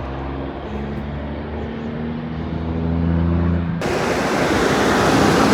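Van engine and road drone heard from inside the cab while driving, a steady low hum that steps slightly in pitch. About four seconds in, a loud rushing noise suddenly sets in over it and stays.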